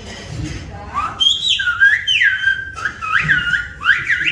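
Silbo Gomero, the whistled language of La Gomera: a person whistling speech as one clear, piercing tone that leaps between high and lower pitches and slides up and down, starting about a second in.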